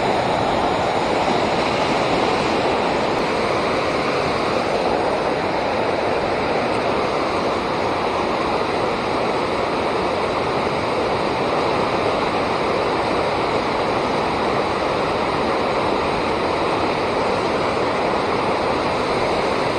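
Steady rushing of river water, an even, unbroken roar with no pauses.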